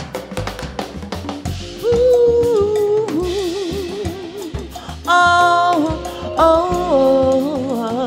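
Live soul band music: a drum kit and bass guitar groove, with a wavering lead melody coming in about two seconds in and returning twice.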